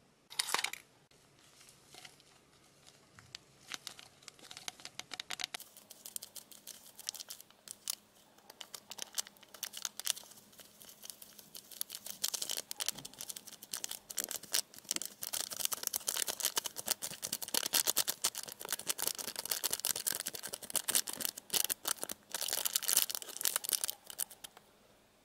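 A plastic candy-kit packet torn open with a short rip about half a second in. A few seconds later comes a long stretch of dense crinkling and fine pattering as the powder is shaken out of the packet into a plastic cup. The powder is clumpy and does not pour out smoothly.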